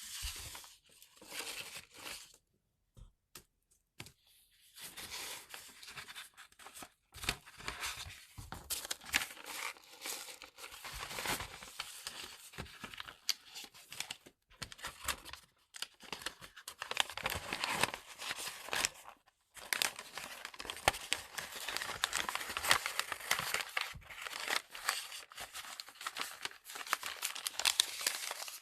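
Paper crinkling and rustling as a dose of herbal medicine is folded and wrapped by hand into a paper packet. There is a short pause about three seconds in.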